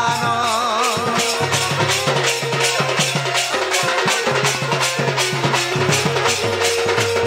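Live folk-theatre music: percussion keeping a quick, steady beat of about four strokes a second under a held melodic note and low bass notes, after a sung line fades out in the first second.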